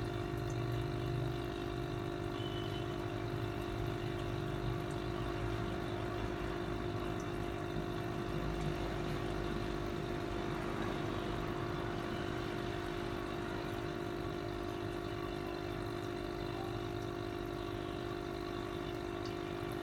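Aquarium air pump humming steadily, with air bubbling up through the water of a goldfish bowl.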